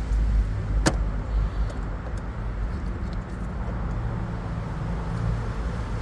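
Fuel pump cover being fitted by hand: one sharp click about a second in and a few faint ticks, over a steady low background rumble.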